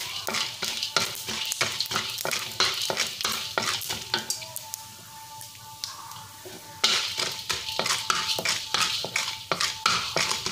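Wooden spatula stirring and scraping urad dal and chana dal frying in oil in a wok: a quick, uneven run of scrapes over a light sizzle. The stirring stops for a couple of seconds around the middle, leaving only the faint sizzle, then starts again.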